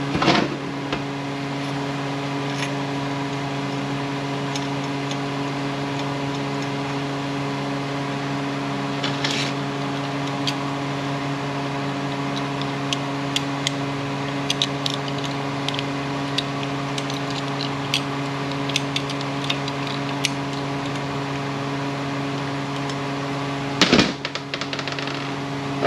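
Steady machine hum with a low drone and a row of higher overtones from shop equipment, under light clicks and clinks of small metal transmission parts being handled on the bench. There are louder clatters just after the start, about nine seconds in, and near the end.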